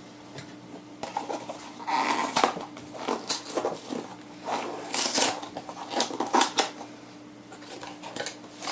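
Small loose metal screws rattling and clinking inside a cardboard box as it is shaken and opened, with rustling of the packaging in irregular bursts.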